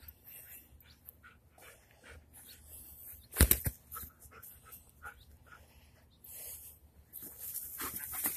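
Dogs playing rough, panting and scuffling in the grass. There is a sharp thump about three and a half seconds in and a stretch of rustling near the end.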